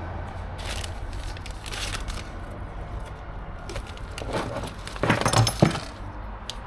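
Hand tools and small parts being handled: scattered rustling and metallic clinks and rattles, busier a little after four seconds in and ending in one sharp snap.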